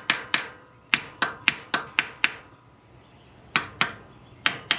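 A hammer tapping lightly on the carburetor in short runs of quick metal-on-metal taps, about four a second, with brief pauses between runs. It is the old trick of rapping a carburetor to free a sticking float or needle valve.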